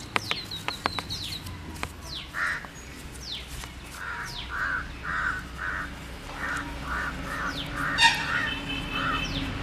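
Crows cawing: a long run of short, harsh caws a few per second, mixed with the high chirps and quick downward whistles of smaller birds and a rapid high trill near the start.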